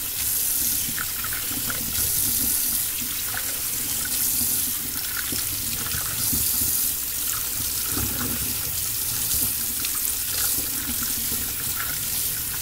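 Faucet running steadily into a stainless steel sink, the stream splashing over a plastic block as gloved hands turn and scrub it under the water.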